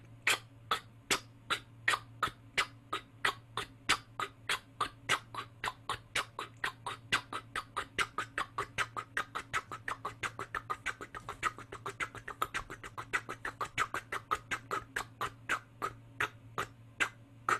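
Fast 'tuk-ka, tuk-ka' train chugging made with the tongue and breath alone: sharp, crisp, percussive front-of-mouth attacks with very little sustain, about five or six a second, slowing a little near the end.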